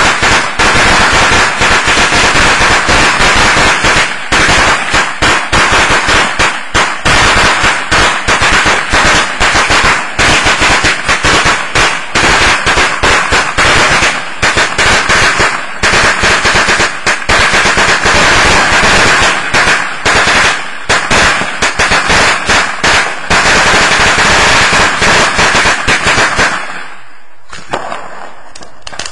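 A long string of firecrackers going off in a rapid, irregular run of loud pops that stops about three seconds before the end, leaving a quieter hiss.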